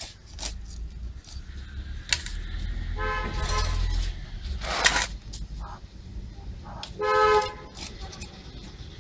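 A vehicle horn tooting twice over the low rumble of passing traffic. The first toot lasts just under a second, about three seconds in, and a shorter one comes about seven seconds in. A short, sharp scrape falls between them.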